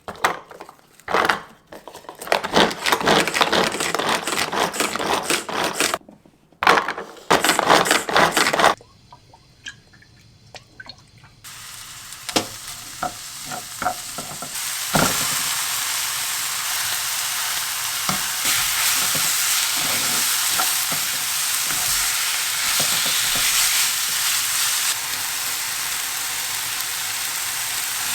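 Loud noisy rustling and handling in two bursts, then a few clicks and knocks. About halfway in, food starts sizzling in a hot frying pan and keeps up as a steady hiss.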